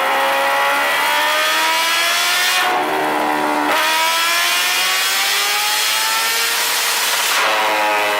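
High-revving engine accelerating hard through the gears, its pitch climbing in long sweeps and dropping at upshifts about three and seven seconds in.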